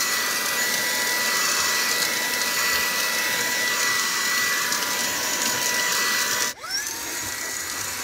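Brigii MX30 cordless handheld vacuum with its brushless motor running at full suction, a steady high whine over rushing air as the nozzle is drawn along a car dashboard. About six and a half seconds in it cuts out briefly, then the motor spins back up with a rising whine and runs on a little quieter.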